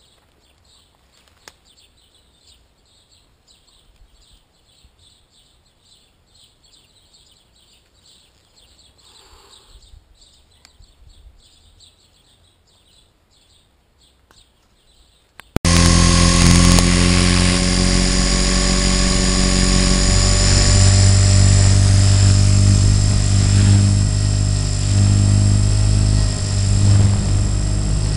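Faint outdoor quiet with a soft, regular chirping for about the first fifteen seconds. Then a loud FPV RC helicopter's motor and rotor whine cuts in abruptly and runs steadily, picked up by the camera on board the helicopter, its pitch shifting a little near the end.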